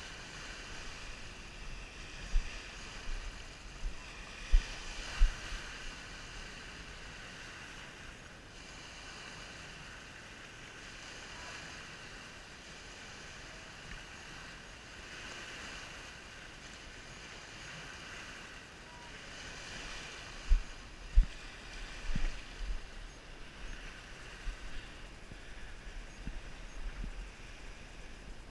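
Small lake waves lapping on a sandy shore, the wash swelling and fading every few seconds. A few sharp low thumps hit the microphone a few seconds in and again about two-thirds through.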